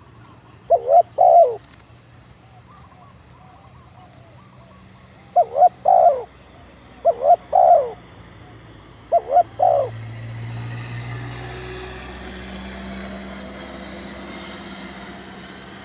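Spotted dove cooing: four short phrases of two or three notes each, spaced a few seconds apart. From about ten seconds in, a steady engine-like rumble rises and stays under the rest.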